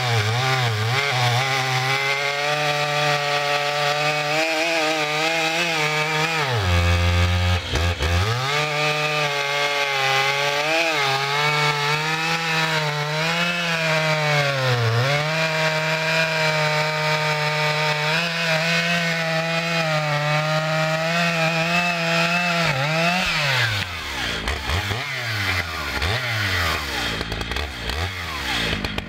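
Stihl MS 881 Magnum, a 122 cc two-stroke chainsaw, running at high speed while cutting through a red oak log, its engine pitch dipping briefly twice under load. Near the end the throttle is eased off and the engine speed falls and wavers. These are the new saw's first cuts in its break-in.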